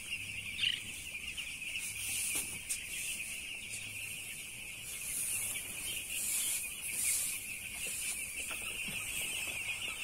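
A flock of eight-day-old broiler chicks peeping all together in a dense, continuous high-pitched chorus.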